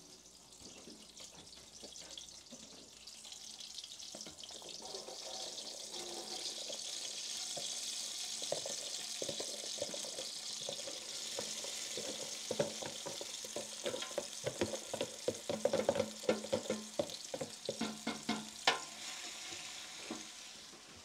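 Chopped onion sizzling as it is tipped into hot oil in a large metal stockpot, the start of a sofrito: the frying hiss builds over the first few seconds and then holds steady. Through the second half a wooden spoon knocks and scrapes against the pot and the plastic container, with one sharper knock near the end.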